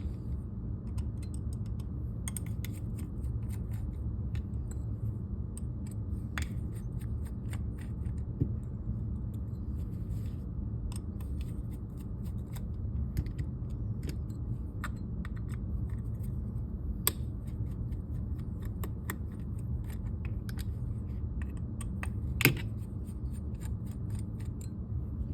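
Scattered small metallic clicks and ticks of a 5/64 Allen key turning out the grip screws of a paintball marker, with the screws and tools being handled, a few sharper clicks standing out. A steady low hum lies underneath.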